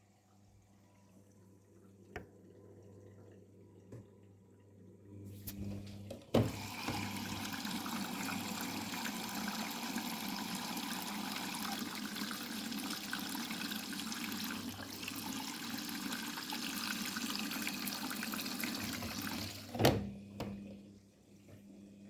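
Daewoo DWD-FT1013 washing machine filling for the rinse: its water inlet valve opens with a thump about six seconds in, water rushes steadily into the drum, and the valve shuts off abruptly near the end. Before the fill there is only a faint low hum with a couple of small clicks.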